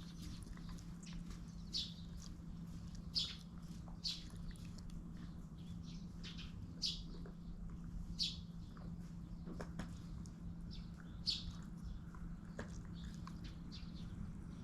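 A small bird chirping: short high chirps repeated about once every second or so, over a steady low hum.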